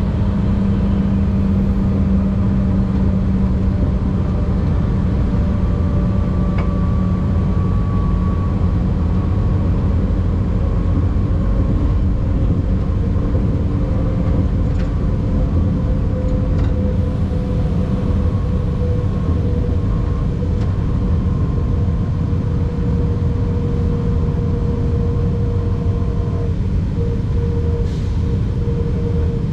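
Car driving steadily: a continuous low rumble of engine and road noise, with a faint engine tone that drifts slowly in pitch.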